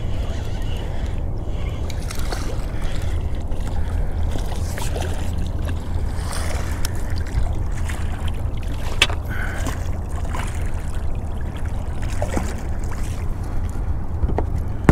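Water sloshing and lapping against a small boat's hull over a steady low rumble of wind on the microphone, with a few light knocks, the sharpest about nine seconds in.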